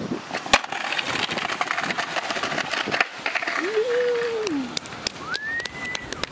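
Skateboard wheels rolling fast down a steep brick-paved bank, rattling and clicking over the paver joints, with a sharp clack about half a second in. Two long gliding cries come over it in the second half, the first rising and falling, the second rising high and held.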